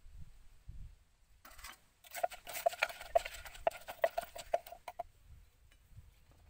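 Metal spoon stirring and scraping inside a wooden mortar of chili paste: a quick run of clinks, about four or five a second, each with a short metallic ring, from about two seconds in to about five seconds in.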